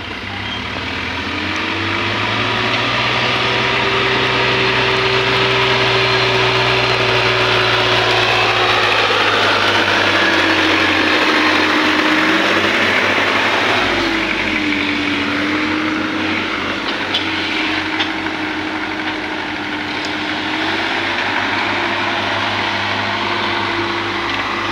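Sonalika Sikander tractor's diesel engine running hard under load in a tug-of-war pull. Its pitch rises about a second in, holds, sags and wavers around the middle, then recovers.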